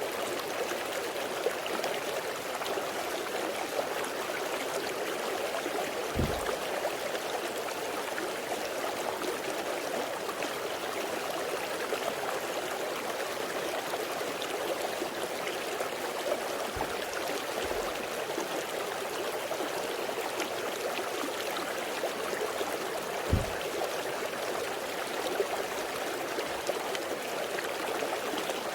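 Valley stream flowing steadily, a continuous rush of water. A few soft low thumps come through at intervals.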